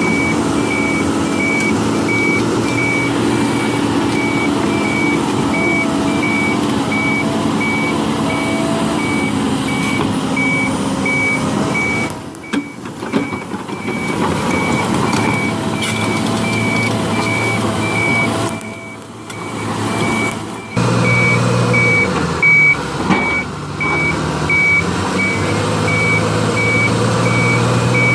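Backup alarm of a heavy machine beeping at a steady, even rate while its engine runs underneath. The engine's note changes a little over twenty seconds in.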